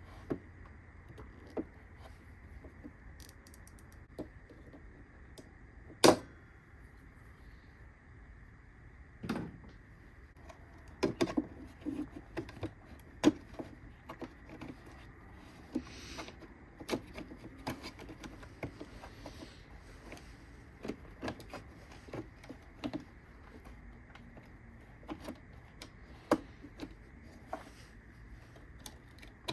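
Scattered clicks, taps and knocks of small plastic and metal parts being handled during repair work, the loudest a single sharp click about six seconds in, with a quick run of clicks a few seconds later.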